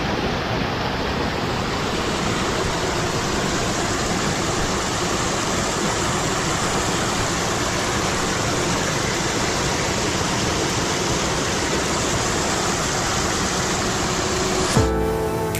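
Rushing water, a steady even roar. Near the end it cuts off abruptly and music begins.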